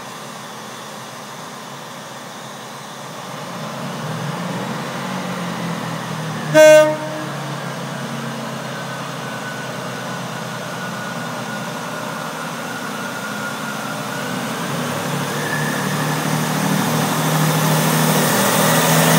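GWR Class 165 Thames Turbo diesel multiple unit pulling away, its underfloor diesel engines humming and growing louder as it gathers speed and draws past. One short blast of the train horn sounds about six and a half seconds in.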